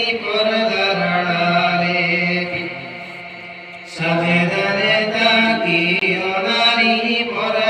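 A man singing a Bengali Islamic gazal solo, in long ornamented phrases with wavering held notes. His voice fades down on a held note a little before halfway, and a new phrase starts sharply about four seconds in.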